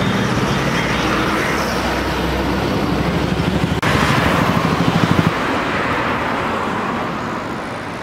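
Road traffic: a bus and a heavy truck pass with their engines running, then about four seconds in a motorcycle passes close by with a rapid engine beat, after which only a softer, even traffic noise remains.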